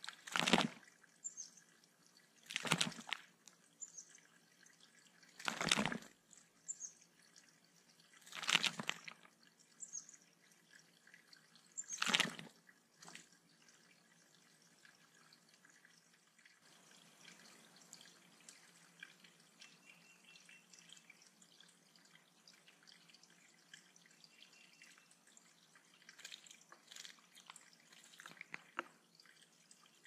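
Yellow-rumped warbler bathing in a shallow rocky bird pond: five short bouts of splashing and wing-fluttering in the water, about every three seconds, over a faint trickle and drip. Near the end a few lighter splashes.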